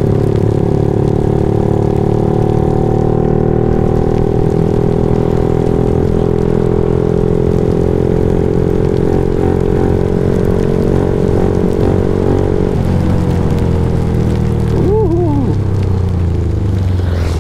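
Motorcycle engine running at a steady, even speed, with a light hiss of rain. Its note shifts slightly about thirteen seconds in, and a brief wavering tone comes about fifteen seconds in.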